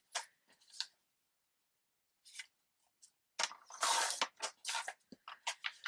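Sheets of paper being handled: a few light clicks, then a burst of paper rustling and sliding about halfway in, with a few more soft taps after it.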